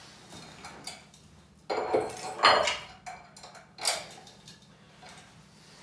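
Metal weight plates clinking and clanking against each other as a small plate is added to the load: a cluster of sharp clanks about two seconds in and one more near four seconds.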